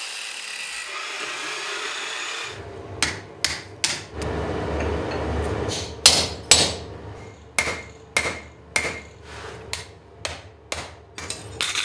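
A steady hiss, then a blacksmith's hammer striking hot steel on an anvil in about a dozen uneven blows, some with a short metallic ring.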